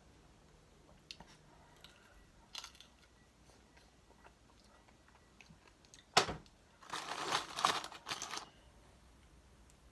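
Crispy fried chicken wing being bitten and crunched: a few faint clicks, then a sharp crack about six seconds in, followed by about a second and a half of loud crunching.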